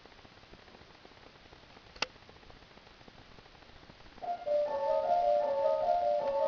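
A hushed concert hall with one sharp click about two seconds in. Then, about four seconds in, a contemporary chamber piece starts softly, with high sustained notes entering one after another and overlapping.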